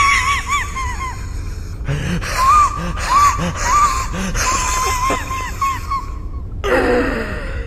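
Repeated short chirping calls, each a quick rise and fall in pitch, with faint low croaks between them and a steady low hum underneath: a night-ambience sound effect of the kind laid over an awkward silence after a joke falls flat.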